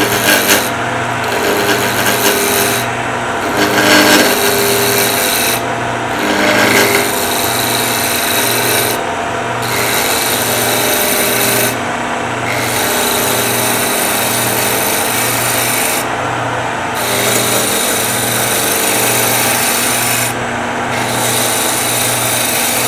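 Woodturning gouge cutting a spinning wood spindle blank on a lathe, a steady hiss of the roughing cut over the lathe's hum, with short breaks every few seconds. The cut is a smooth, steady sound rather than a bump-bump-bump: the gouge is riding on solid wood and the blank has come round.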